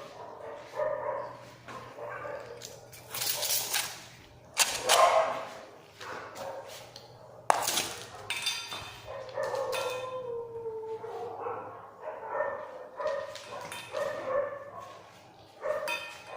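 A dog making repeated short whines and yips about once a second, with a few louder barks in the first half and one longer falling whine about ten seconds in.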